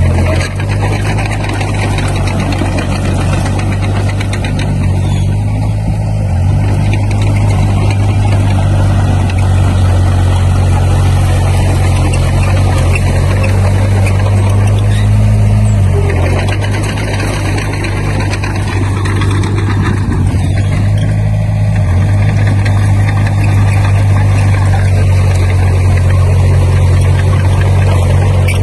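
Diesel engine of heavy construction machinery running steadily, with a deep hum that shifts slightly in pitch a few times as the load changes.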